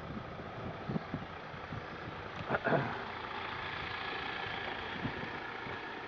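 Vehicle engine idling steadily, with a brief louder noise about halfway through.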